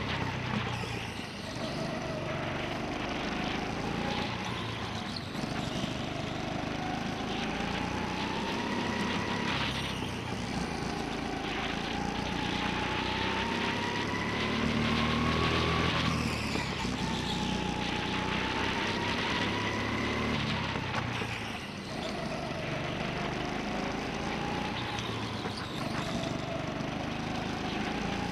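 Go-kart motor heard from on board during a lap. Its pitch climbs slowly along each straight and drops sharply as the driver lifts for the corners, five or six times in all.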